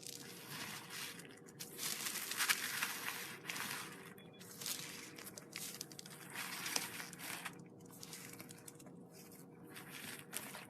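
Slime being worked by hand, giving crackly, crinkly squelches in irregular bursts with short pauses between them.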